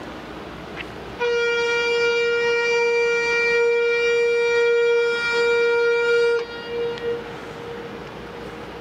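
Ship's whistle of the training ship Yuge Maru sounding one long steady blast of about five seconds as a greeting. It starts suddenly about a second in, cuts off sharply, and leaves a short fading echo.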